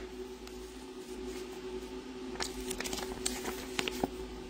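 Folded sheet of paper rustling and crackling as it is opened out, with a few short, crisp crackles from about two and a half seconds in.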